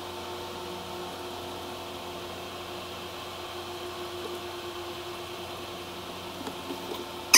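Steady room noise: an even hiss with a faint low hum underneath, and one sharp click near the end.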